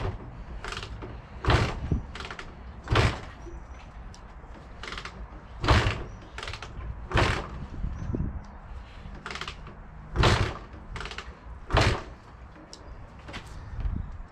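Honda MTX 200 two-stroke single being kick-started over and over, a sharp thump with each kick about every second or so, the engine turning over without catching.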